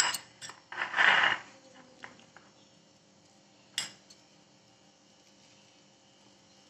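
A metal spoon clinking against a small glass bowl of crumbled khoya: a sharp clink at the start, a short scraping rustle about a second in, and one more clink a little before four seconds.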